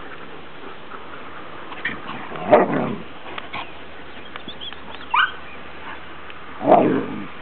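Huskies barking: two loud single barks about four seconds apart, with a short high yelp that rises in pitch between them and a few faint yips early on.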